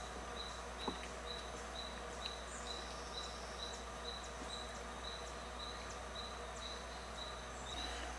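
Forest ambience: a high chirp repeating evenly about twice a second, typical of a calling insect, with a few scattered higher chirps over a faint low hum.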